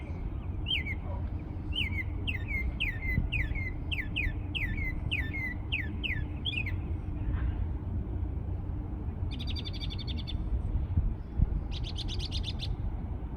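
A songbird singing a run of repeated downslurred whistled notes, about two a second, that stops partway through; later come two short, buzzy trills, over a steady low rumble.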